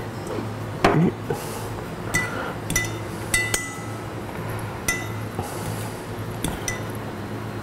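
Metal fork clinking against a ceramic bowl while turning pieces of cheese in beaten egg: a louder knock about a second in, then about five short, ringing clinks.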